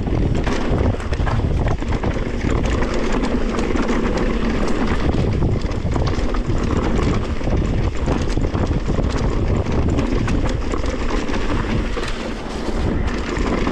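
Mountain bike riding down a dirt trail: tyres rolling over the ground and the bike rattling, with frequent clicks and knocks from bumps, under heavy wind rumble on the helmet-camera microphone.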